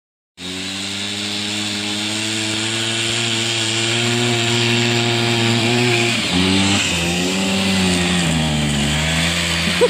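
The small engine of an Arctic Cat Kitty Cat children's snowmobile runs steadily while towing a sled. From about six seconds in, its pitch wavers down and back up.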